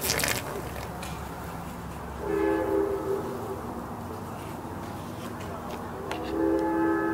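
A train horn sounding two sustained blasts of a few steady notes together, the first about two seconds in and lasting about a second, the second starting about four seconds later and held longer.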